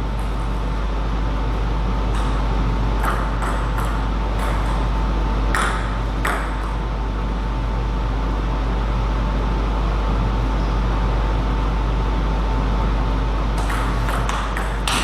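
Table tennis ball clicking off bats and the table: a few scattered hits in the first half, then a quick run of hits near the end, over a steady hall hum.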